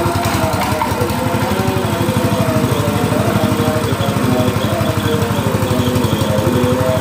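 A small engine runs steadily, driving a grass chopper machine during a test run, with a fast, even pulse.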